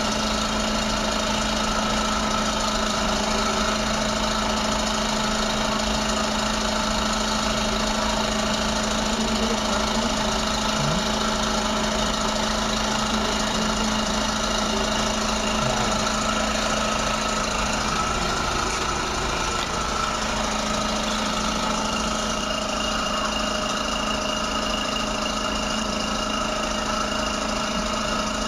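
Dental suction unit running steadily: a loud, even motor drone with a low hum and several higher steady tones that do not change.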